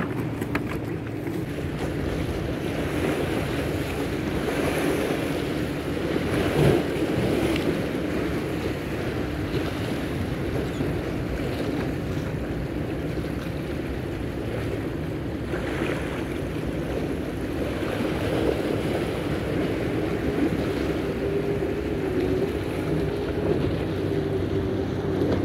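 Wind on the microphone and water washing against a rock wall, under the steady drone of motorboats running on the channel; one engine hum becomes clearer in the last few seconds.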